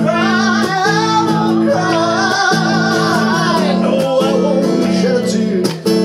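A male vocalist sings long, wavering held notes of a pop song over steady acoustic guitar chords.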